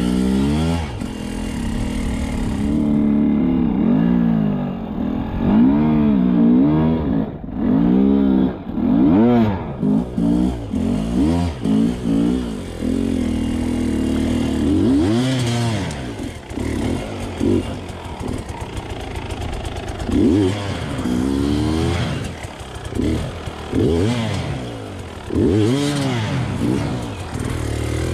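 Sherco enduro dirt bike engine revved again and again in short throttle blips, each rising and falling in pitch, with a lower running note between them.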